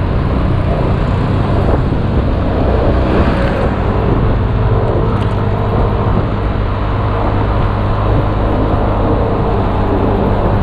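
Motor scooter running steadily at road speed, a constant engine hum under steady road and traffic noise.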